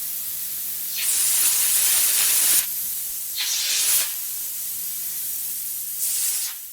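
Iguana hissing: three forceful hisses, a long one about a second in, a shorter one a little later that rises in pitch, and a brief one near the end, over a steady faint background hiss.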